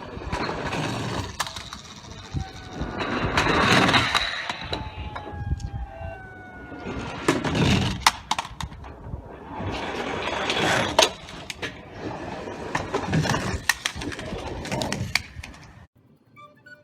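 Plastic toy vehicles being rolled and handled on a hard surface: five bursts of rattling and scraping, each one to three seconds long, with sharp clicks throughout.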